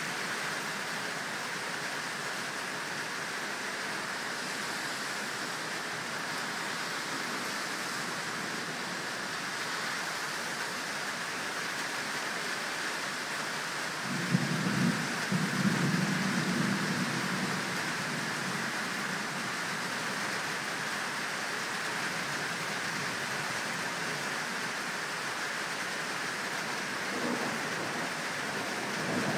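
Steady rain hiss throughout the thunderstorm. About halfway through, a sharp thunderclap breaks right after a lightning flash and rumbles for about three seconds.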